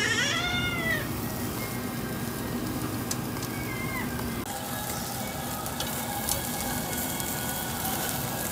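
A short high cry that rises and falls in the first second. Then the steady sizzle of meat on a gas tabletop yakiniku grill, with scattered crackles and pops.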